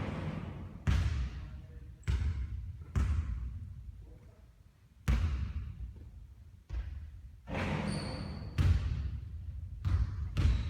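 A basketball bouncing on a court floor: about ten sharp thuds at uneven intervals, each trailing off in a short echo.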